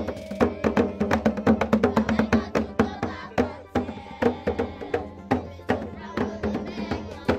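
Lively music driven by a fast beat of percussion strikes, with voices over it.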